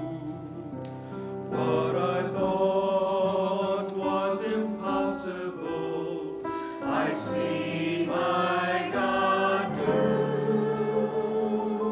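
Mixed church choir of men's and women's voices singing in sustained chords, with the full choir coming in strongly about a second and a half in.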